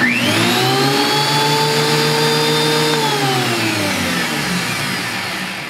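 DeWalt benchtop thickness planer run empty, with no board fed: the motor and cutterhead spin up in about half a second to a loud, steady whine. About three seconds in it is switched off and winds down with a falling pitch.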